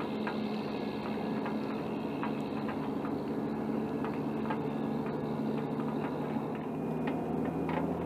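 Engine running steadily, most likely an aircraft tow tractor: an even hum with a few held low tones.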